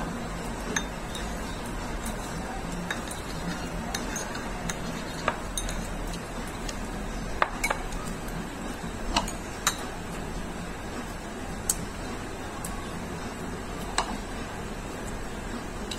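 Chopsticks clicking and clinking against a ceramic bowl as instant fried noodles are picked up and eaten: a dozen or so short, sharp clicks at uneven intervals over steady low background noise.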